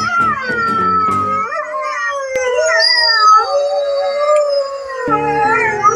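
Several wolves howling together: long overlapping howls that glide up and down in pitch. A low, pulsing music bed runs under the howls for the first second and a half and comes back near the end.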